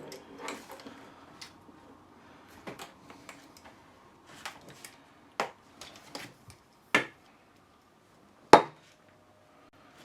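Scattered clicks and knocks of a telescopic suitcase handle's mechanism being handled and pressed, about half a dozen at irregular intervals, with the loudest knock near the end.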